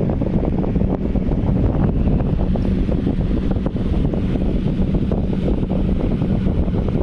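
Air cooler running: its fan blows a steady rush of air over a low, even motor hum, and the airflow buffets the microphone.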